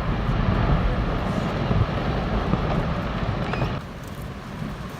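Glacier ice collapsing into the sea: a heavy, continuous rumble of falling ice and churning water, easing somewhat about four seconds in.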